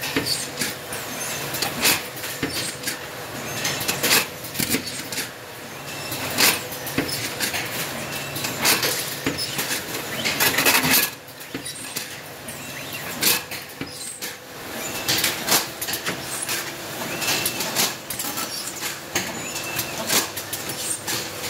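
IQ-HSL "High Speed" petri dish filling machine's bulk loader running: irregular clicks and clacks of plastic petri dishes and metal mechanism over a steady machine hum, with a denser burst of clatter about halfway through.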